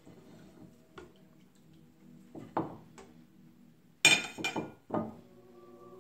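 Ceramic dinner plate and a metal serving spoon clinking on a wooden counter: a few light clinks, then a louder clatter about four seconds in as the plate is moved and set down, and another short one about a second later.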